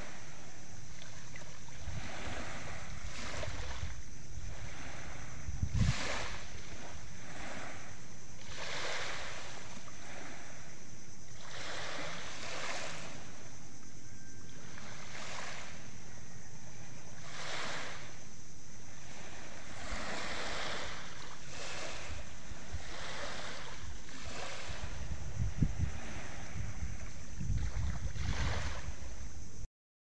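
Small sea waves washing onto a pebble beach every couple of seconds, with gusts of wind on the microphone around six seconds in and again near the end. The sound cuts off suddenly just before the end.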